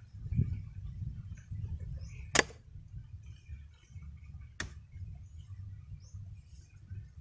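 Machete blade chopping into a banana sucker's corm while trimming it: two sharp chops about two seconds apart, the first the louder, over a low rumble.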